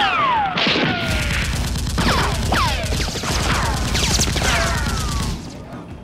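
Automatic gunfire sound effects: a fast run of shots with repeated falling ricochet whines, the firing breaking off about five seconds in.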